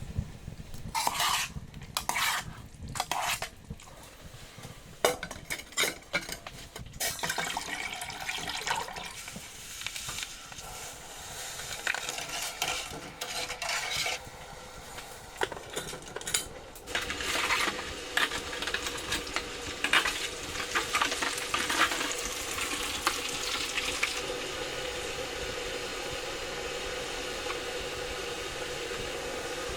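Cooking in a pan: metal utensils clattering and scraping against cookware, then food frying with a steady sizzle from about halfway through.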